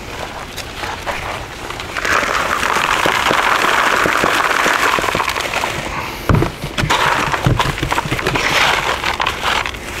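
Chunky potting mix of perlite, bark and coco coir poured from a bucket into a large plastic nursery pot: a steady rushing pour lasting about four seconds. After it come several sharp knocks and rustles as the mix is worked in by hand.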